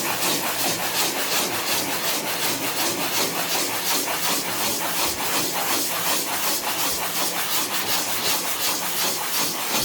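Dry 220-grit sandpaper rubbed by hand in circles over cured gel coat on a fiberglass boat hull, a steady scratchy rasp in a quick, even rhythm of strokes. The gel coat has paraffin wax solution mixed in, so it sands down fast.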